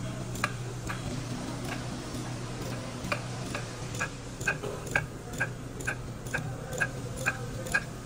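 Evenly spaced metallic ticks, about two a second, each with a short ring, over a steady low hum.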